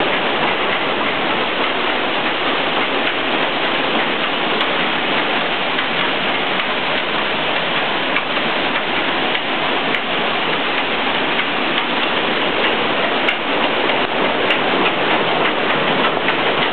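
Steady rush of water pouring through a water-powered mill's wheel pit beneath the wooden floor, with a few faint clicks from the turning machinery.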